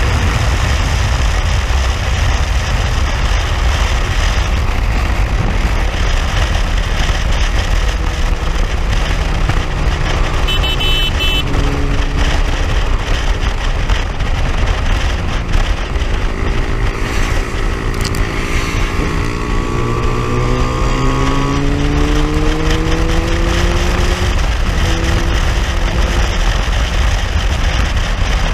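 Motorcycle running at road speed, with heavy wind rumble on the microphone over the engine. Past the middle the engine pitch climbs steadily for several seconds.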